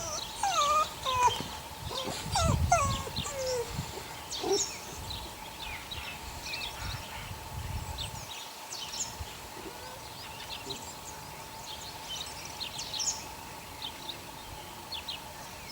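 Eight-week-old puppies whining and squeaking in short rising and falling cries over the first few seconds, with small birds chirping in the background throughout.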